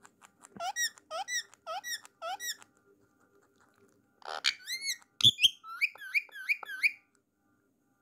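Indian ringneck parrot making short, high, squeaky calls: a quick run of them, a pause of about a second and a half, then a second run, with a knock during the second run.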